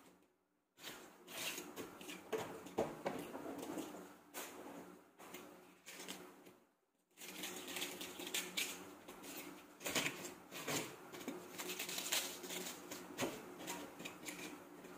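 Hands tearing and crumbling soft white food into a bowl: an irregular rustling crackle with small taps, broken by two short near-silent gaps, just after the start and about seven seconds in.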